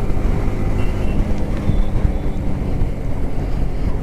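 Yamaha R15M's single-cylinder engine running at a steady cruise while the motorcycle is ridden, heard from the rider's camera.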